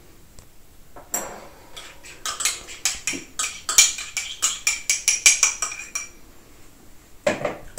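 A spoon scraping and clinking against a small pot and a mixing bowl as yoghurt is spooned out, a quick run of clinks and scrapes that is densest in the middle, with one more knock near the end.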